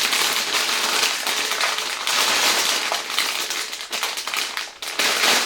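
Plastic parts bags of Lego pieces crinkling and crackling as they are handled and turned over.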